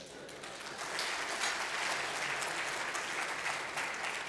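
Audience applauding in a hall, building over the first second and then holding steady.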